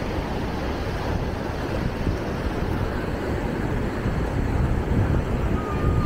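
Wind buffeting the microphone, with the rush of surf on the beach behind it.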